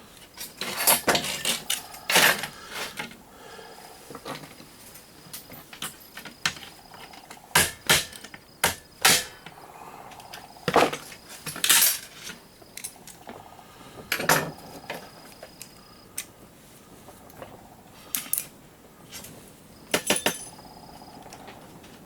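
Irregular sharp clicks and clatters of small metal and plastic parts and hand tools as a surge protector is pried and pulled apart.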